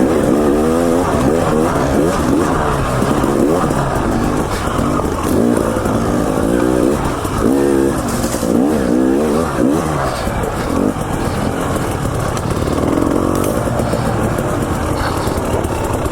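KTM 300 XC-W TPI two-stroke dirt bike engine under riding load, revving up and down in quick throttle blips for about ten seconds, then running more steadily.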